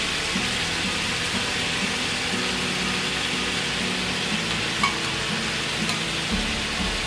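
Chicken drumsticks shallow-frying in oil in a nonstick pan: a steady sizzle with a small pop about five seconds in, over quiet background music.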